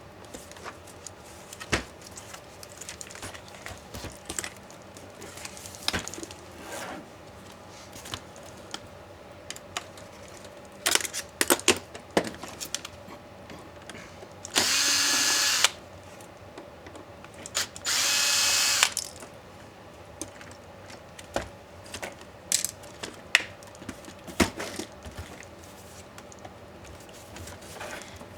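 A small electric screwdriver runs in two short bursts of about a second each, roughly halfway through, removing screws from a laptop. Scattered clicks and taps of laptop parts and screws being handled come before and after.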